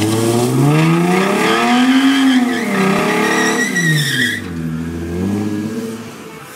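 The 3.7-litre V6 of a Mustang revs up and down twice during a drag-strip burnout. The spinning rear tyres squeal through the first rev and cut off sharply about four and a half seconds in, and the engine then drops back to a low rumble.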